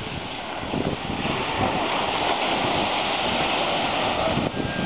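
Ocean surf rushing, with wind on the microphone; the noise swells about a second in and drops off abruptly near the end.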